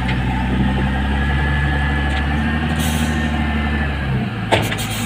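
Heavy diesel engines of a LiuGong wheel loader and a Tata Prima tipper running steadily with the loader under load as it lifts its bucket, a faint whine in the middle and a short hiss about three seconds in. About four and a half seconds in there is a sharp knock as the loader tips its bucket of 40 mm crushed stone into the tipper's body.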